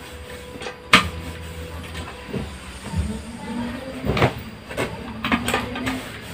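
Clothes being ironed and handled: a sharp knock about a second in, then a white garment being shaken out and smoothed flat, with a few short knocks and a low steady hum underneath.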